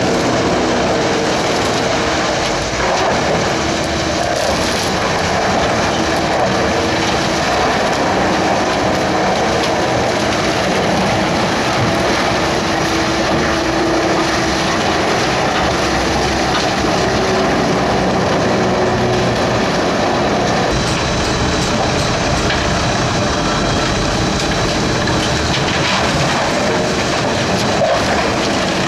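Large industrial wood chipper, rated at 60 tons an hour, running steadily and loudly: a dense clattering noise with a few faint humming tones. The sound turns harsher and brighter about two-thirds of the way through.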